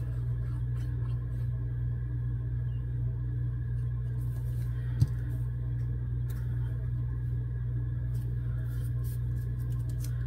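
Faint rustling of a paper cut-out being handled and pressed down onto a paper tag by hand, over a steady low hum, with one sharp tap about five seconds in.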